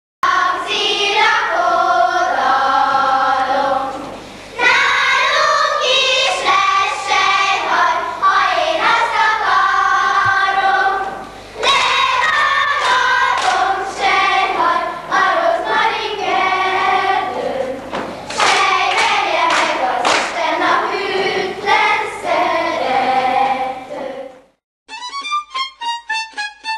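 A group of young children singing a song on stage in long phrases, recorded on an old camcorder tape with a steady low hum underneath. Near the end the singing cuts off and different instrumental music begins.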